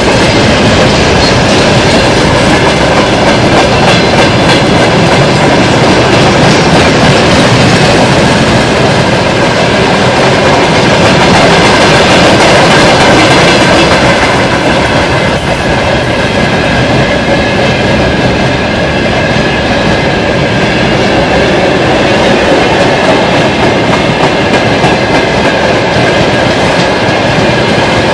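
Freight train of boxcars, tank cars and hopper wagons rolling past at speed: loud wheel clatter over the rail joints, with a steady high ring over the rumble.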